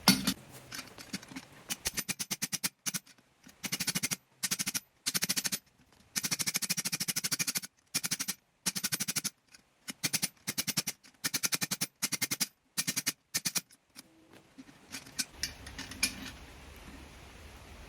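Fast runs of hammer blows ringing on hot steel at the anvil, drawing out a small forged hammer handle. The runs come in quick bursts broken by short silences, and give way to a faint steady low hum near the end.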